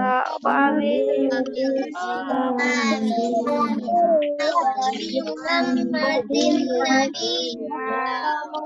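Children's voices chanting a prayer together in a sing-song way.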